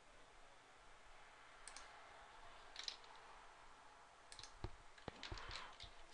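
Faint, scattered clicks of a computer keyboard and mouse while code is edited, a few early on and more closely spaced in the second half.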